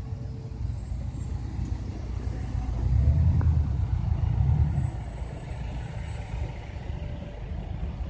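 Low, steady rumble of car engines in slow queued traffic. It swells from about three to five seconds in as a car moves close by, then settles back.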